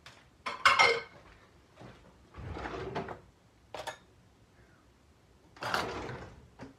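Kitchen drawers and cupboard doors being opened and shut while things inside are moved about. There is a loud clatter just under a second in, a longer rattle a couple of seconds later, a sharp click, and another rattle near the end.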